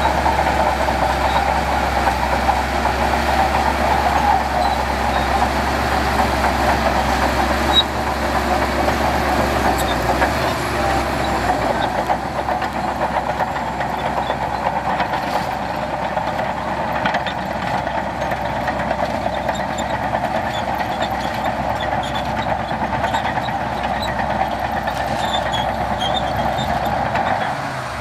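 Heavy diesel earthmoving machinery running steadily at work, with scattered light metallic clanks, a little quieter after about twelve seconds.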